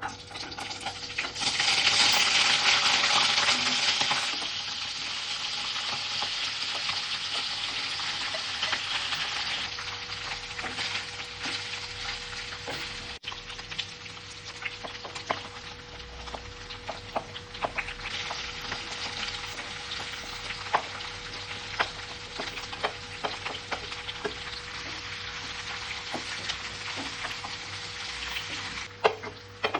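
Food frying in hot oil in a pan. A loud burst of sizzling starts about a second and a half in and settles after a few seconds into a steady sizzle, with a spatula stirring and clicking against the pan throughout.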